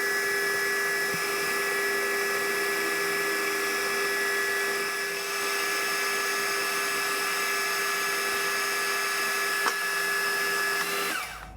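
Metal lathe taking a turning cut on a 4140 steel shaft: a steady, high-pitched whine over the hiss of the cut. It stops abruptly near the end.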